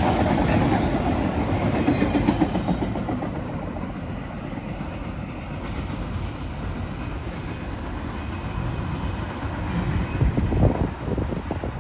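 Freight cars of a CSX freight train rolling past, their wheels clacking in a rhythm over the rails with a heavy rumble. It eases off over the first few seconds, then a louder run of clacks comes near the end.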